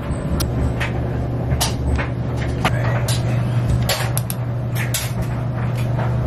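A steady low machine hum, with irregular sharp clicks and taps as the dial and buttons of a Maytag top-load washing machine's control panel are set.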